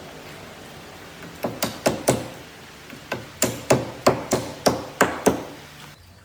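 Hammering on wood: four quick strikes, a short pause, then about nine more at roughly three strikes a second.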